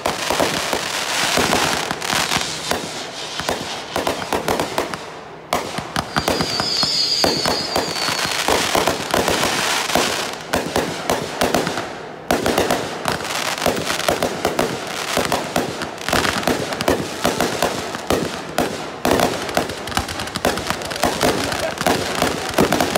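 Fireworks going off in rapid succession: dense crackling and popping of aerial shots, with a short whistle about seven seconds in and brief lulls at about five and twelve seconds before the barrage resumes.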